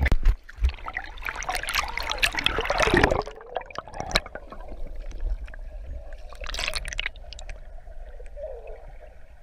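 Pool water splashing loudly around a GoPro at the surface. About three seconds in, it gives way to the muffled gurgling and bubbling of the camera under water.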